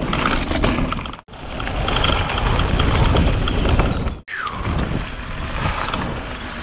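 Electric mountain bike being ridden on a dirt singletrack trail: steady rumble of tyres and rattling bike with wind on the helmet camera's microphone, broken by brief dropouts about every three seconds. A short falling whine comes about two-thirds through.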